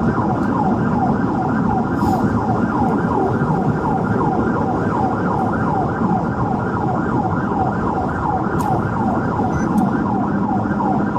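Police car siren in fast yelp mode, about three sweeps a second, over the steady engine and road noise of a patrol car at highway speed.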